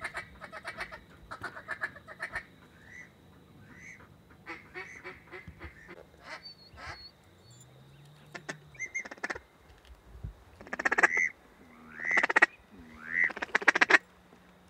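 Ducks quacking in fast runs of short calls, then louder goose honks, three in a row near the end, each rising and falling in pitch.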